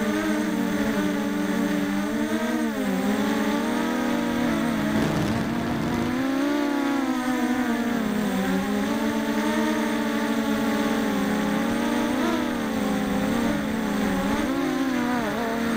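Quadcopter's four Emax 2204 2300kv brushless motors spinning HQ6045 propellers, a steady whine whose pitch drops and climbs again several times as the throttle changes.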